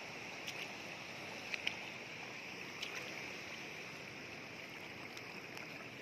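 Bare feet wading through shallow floodwater over grass and mud, with several short, sharp splashes over a steady background hiss.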